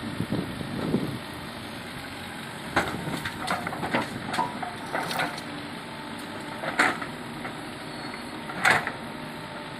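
Backhoe loader's diesel engine running steadily, with a handful of sharp metallic clanks and knocks scattered through, the loudest near the end.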